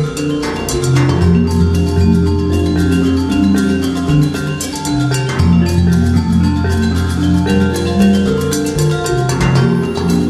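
Background music with pitched percussion over a steady bass line.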